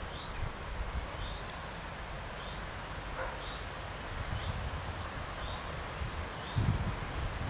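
Wind rumbling on the microphone, with a short, high bird chirp repeated about once a second.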